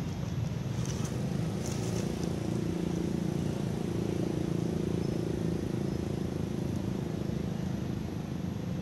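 Steady low rumble of an engine running, its hum a little stronger in the middle.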